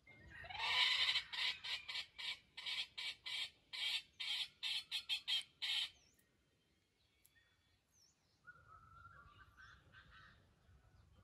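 A loud animal call made of a run of short buzzing pulses, about four a second. It opens with a brief rising note and stops after about six seconds. Fainter bird-like calls follow near the end.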